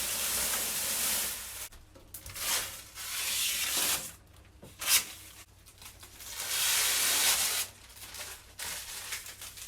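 Plastic packaging being handled: crinkling and rustling in several swells with one sharp crackle in the middle.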